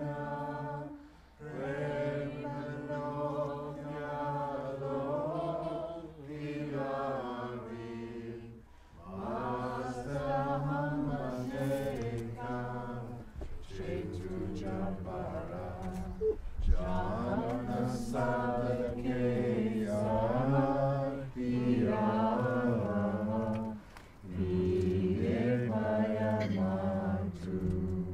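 Chanted vocal music: voices singing long held notes in phrases a few seconds long, with short pauses between them.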